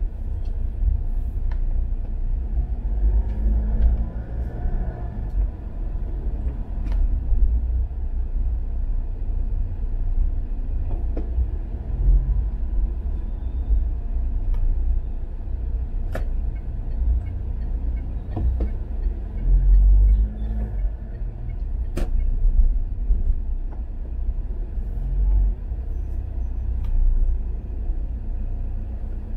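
Steady low rumble of a car driving slowly in heavy city traffic, heard from inside the car, with a few sharp clicks.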